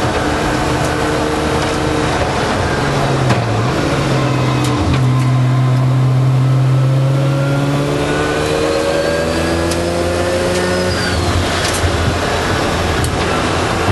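Mazda RX-7 time-attack car's rotary engine heard from inside the cockpit, running hard on track. The engine note dips briefly twice in the first five seconds, holds steady, then climbs from about eight seconds in, with a few sharp clicks over it.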